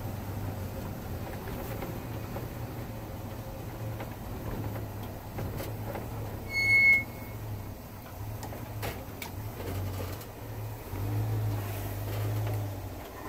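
In-cab sound of a 1968 International Harvester 1100D pickup's 345 V8 running at low speed, a steady low drone. A single short high-pitched beep comes about seven seconds in, with a few light clicks.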